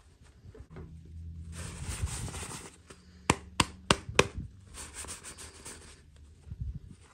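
Toy packaging being handled during an unboxing: a crinkling rustle, then four sharp clicks in quick succession, then more rustling and a couple of dull knocks near the end.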